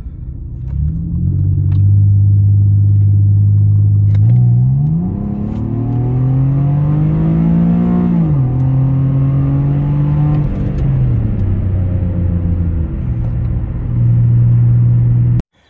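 Infiniti G37's 3.7-litre V6 heard from inside the cabin while accelerating under load. The engine note climbs for several seconds, drops sharply at an upshift of the automatic transmission about eight seconds in, then runs steadily with a couple more dips, and cuts off suddenly near the end.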